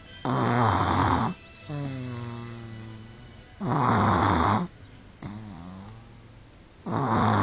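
An 18-month-old baby snoring: three loud snores about three seconds apart. The first is followed by a softer humming breath that slowly falls in pitch.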